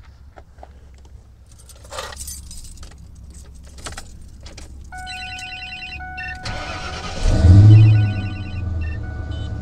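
Clicks and a thump from the truck cab, then a repeating electronic warning chime about five seconds in. The starter cranks briefly and the 1995 Ford F-150's 5.0 L V8 catches about seven seconds in. It flares up loudly and settles into a steady, noisy idle on its new capacitive-discharge ignition.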